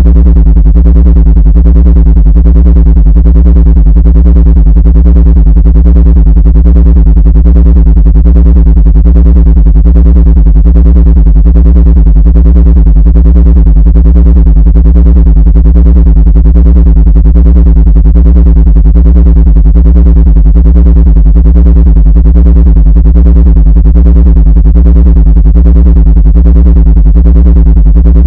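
Loud, steady synthesized low drone, a low buzzing tone with a stack of overtones that flutters rapidly and never changes, played as a supposed ant-repelling frequency.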